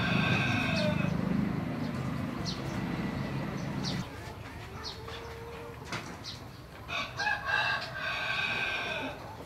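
A rooster crowing twice: a short crow right at the start and a longer one about seven seconds in, with a few short high chirps between them.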